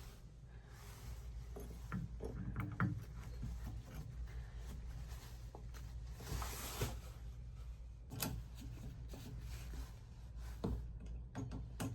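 Hand-tool scraping and rubbing with scattered taps and a few sharp clicks, as material is cut away so a trim plate can sit flush.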